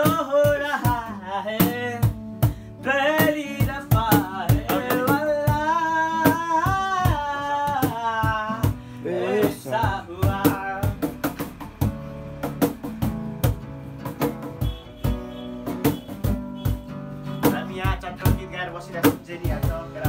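Acoustic guitar strummed with a steady beat of sharp percussive hits while a young man sings over it, the voice strongest in the first half and fainter later.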